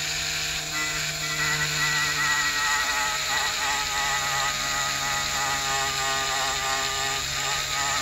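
Dremel rotary tool on its lowest speed, running a fine brush bit against a plastic gauge-face overlay to scrub off its green tint: a steady, low whir whose pitch wavers as the bit works the surface.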